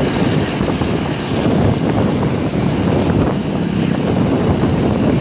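Loud, steady wind buffeting the microphone over the rumble of road vehicles; no horn melody stands out.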